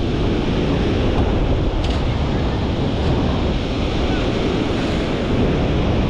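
Ocean surf washing at the shoreline with wind buffeting the microphone: a steady, heavy rush of noise.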